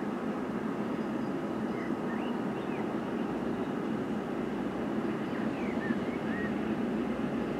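A pair of GE C36-7i diesel-electric locomotives working under load in the distance, giving a steady low engine drone. A few short bird chirps come twice over it.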